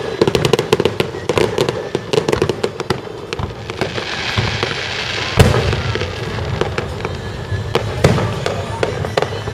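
Aerial fireworks going off: a rapid string of sharp crackling pops for the first few seconds, then a single loud bang about five and a half seconds in and another near eight seconds.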